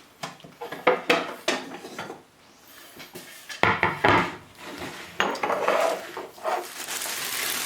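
Kitchen clatter as vegetables go into the soup maker's jug: a string of knocks and clinks, with a louder clunk about three and a half seconds in.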